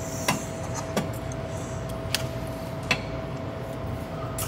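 Exhaust hanger removal pliers working a rubber exhaust hanger off its metal rod, giving a few sharp metal clicks and clinks. A faint steady hum runs underneath.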